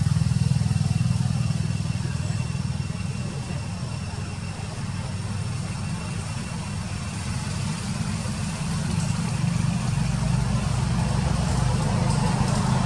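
A motor vehicle engine running steadily nearby, a low drone that eases off slightly in the middle and grows louder near the end.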